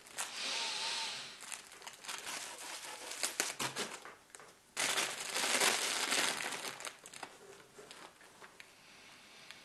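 Clear plastic bag crinkling and rustling as it is pulled open and handled, with a loudest stretch of about two seconds halfway through.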